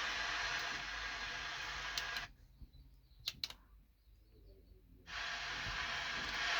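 Steady hiss that drops out for about three seconds in the middle, with a few faint clicks during the gap.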